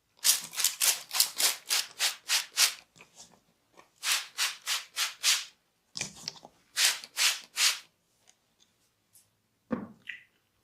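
Hands rubbing briskly in a massage, in quick even strokes of about four a second, in three runs with short pauses between them.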